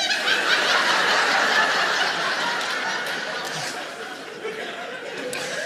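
Theatre audience laughing at a punchline. The laughter is loud at first and dies down gradually over several seconds.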